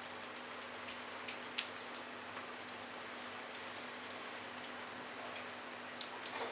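Light rain falling steadily, with no thunder, and single drops ticking sharply here and there: one louder drop about a second and a half in and a few more near the end.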